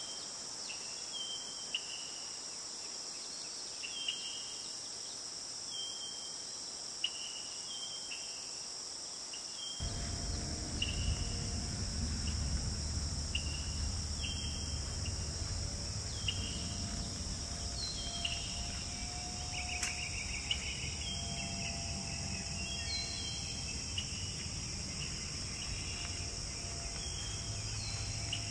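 Insects buzzing steadily and high, with short falling chirps repeating about once a second. About a third of the way in, a low rumble joins underneath.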